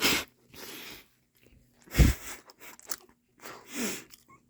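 A person chewing a mouthful of breakfast burrito close to the microphone, in several separate bursts of mouth noise, the loudest about two seconds in.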